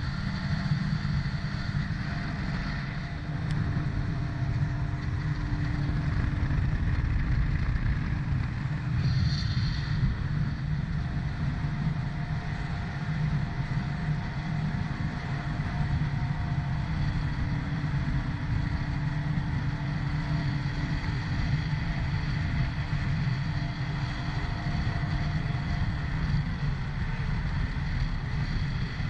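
Jet ski engine running steadily at cruising speed of around 60 km/h, with water and rushing-air noise.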